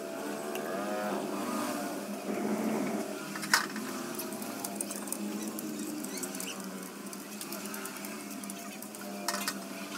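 Enamelled copper winding wire rustling and ticking as coils are worked into the slots of a three-phase induction motor's stator during rewinding. There is a sharp click about three and a half seconds in and another near the end.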